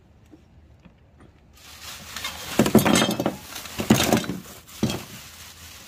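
Black plastic trash bag rustling and crinkling as a hand rummages through it, starting about a second and a half in, with several louder rustles.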